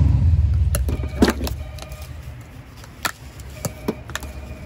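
Low traffic rumble from a passing vehicle fades over the first second or two. Then a steel spoon clinks against a steel pot of chole several times, short metallic knocks with a brief ring. The loudest clink comes about a second in, and a cluster follows near the end.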